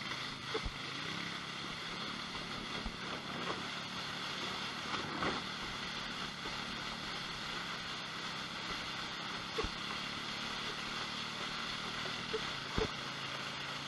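A steady engine drone and rushing noise, muffled by a GoPro's waterproof housing, as a kayak is towed. A few sharp knocks come through, the loudest near the end.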